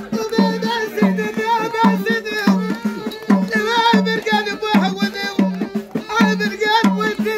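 A group of men singing a Moroccan folk song together over a hand drum keeping a steady beat of about two to three strokes a second.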